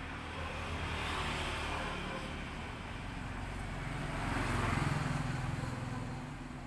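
Road vehicles passing by: engine and tyre noise swells and fades twice, the second pass louder, peaking about five seconds in.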